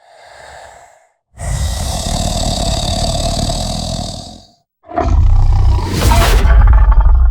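Indoraptor sound-effect vocalizations: a faint short call, then a long steady screech of about three seconds, then a loud, rough roar that starts near five seconds in.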